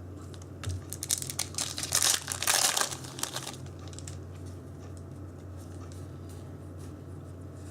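Foil wrapper of a Yu-Gi-Oh booster pack crinkling and tearing open, a run of rustling that starts about a second in and stops about three and a half seconds in. A low steady hum runs underneath.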